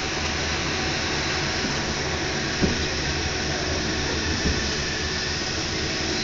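Paris Métro MP89CC rubber-tyred train running through a tunnel, heard from inside the car: a steady rushing noise, with a light knock a little over two and a half seconds in and another about four and a half seconds in.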